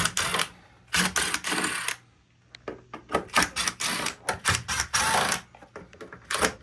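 A power driver fitted with a 1/4-inch hex bit backing out the sheet-metal screws of a refrigerator's bottom rear panel, running in two spells of about a second each, among quick clicks and rattles as the screws and panel are handled.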